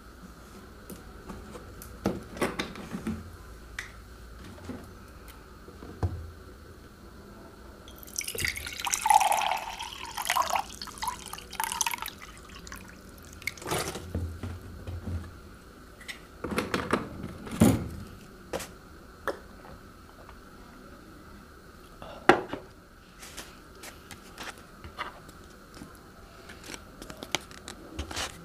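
A person eating cup instant noodles close to the microphone: wet slurping, chewing and mouth clicks. The longest slurp runs about four seconds, about a third of the way in, and shorter ones follow.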